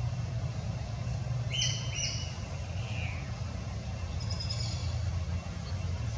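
Bird chirps: two short, clear calls about one and a half seconds in, a fainter one soon after and a few faint high calls later, over a steady low rumble.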